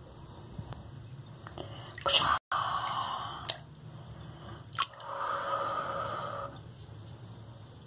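Bath water moved by a hand: a few sharp drips and splashes with short stretches of trickling, sloshing water.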